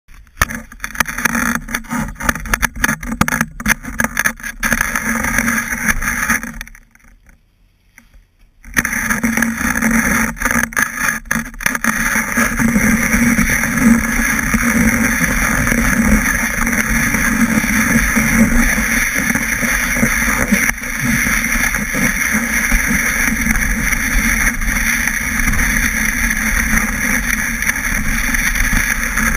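Snowboard base sliding over packed snow, picked up through a board-mounted action camera: a rough scraping rumble that comes in choppy bursts at first, drops almost silent for a couple of seconds about seven seconds in, then runs steady and continuous as the board glides.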